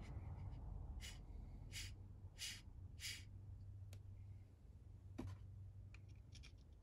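Four short, breathy puffs of air about two-thirds of a second apart, then a few light clicks as the plastic model parts are handled and fitted together near the end.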